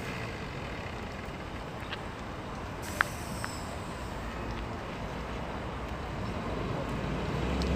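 Steady hum of a vehicle engine idling close by, with a single sharp click about three seconds in. Near the end a deeper engine hum swells and grows louder.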